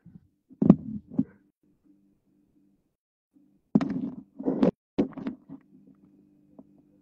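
Short bursts of laughter heard over a phone video call, once about a second in and again around four to five seconds in, with a low steady hum between them.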